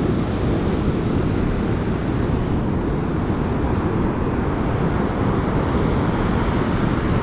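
Steady rumble of surf on a beach, mixed with wind buffeting the microphone.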